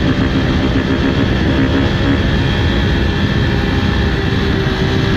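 Husqvarna FC350 four-stroke single-cylinder dirt bike engine running at a steady pitch while the bike is ridden at speed. The engine is partly buried under a loud rush of wind on the microphone.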